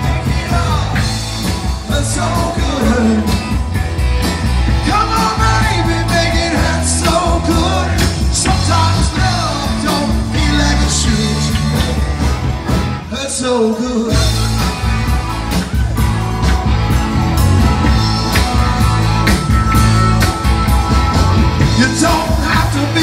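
Live rock band playing: electric guitars, bass guitar and drums with a singer. The bass and drums drop out for a moment about halfway through, then come back in.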